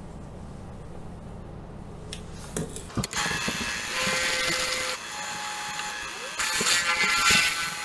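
Benchtop drill press bit cutting into a steel bar held in a drill press vise: a loud, hissy grinding with a steady whine in it that starts after a click about three seconds in, eases off about five seconds in and picks up again.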